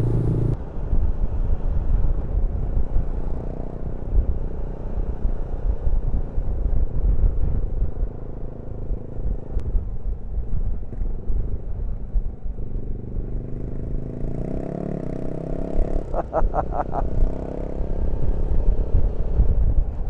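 Suzuki V-Strom motorcycle on the move: heavy wind rumble over the engine note. About two thirds of the way in, the engine note climbs as the bike accelerates.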